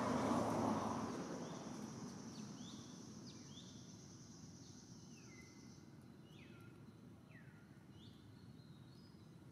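Outdoor ambience with birds calling in short, downward-sliding chirps and a steady high insect whine that stops about six seconds in. A broad rushing noise is loudest at the start and fades away over the first two seconds.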